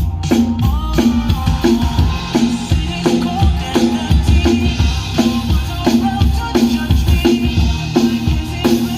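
Live drum kit played along to loud amplified backing music, bass drum and snare keeping a steady beat.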